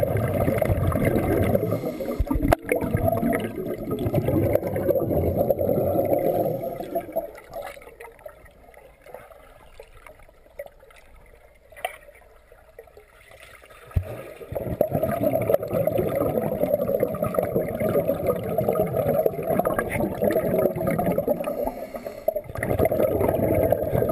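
Muffled underwater rushing and bubbling of swimming-pool water stirred by swimmers, heard with the microphone submerged. It quietens for several seconds mid-way, then comes back suddenly a little past halfway.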